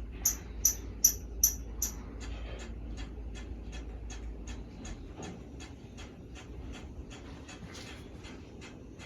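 Hunter Altadora ceiling fan running on high, giving a steady tick about three times a second, about once per turn of the blades, over a low hum that drops away about halfway through. Five short, sharp, high-pitched sounds stand out as the loudest thing in the first two seconds.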